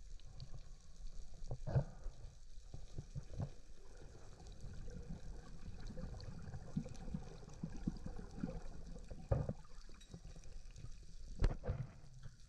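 Muffled water movement with a low rumble and scattered knocks, the clearest about two seconds in and twice near the end, in a spearfisher's recording at sea.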